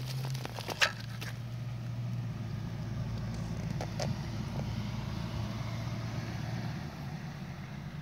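A low, steady engine hum; its steady tone drops out near the end. A sharp click about a second in, and a fainter one about halfway.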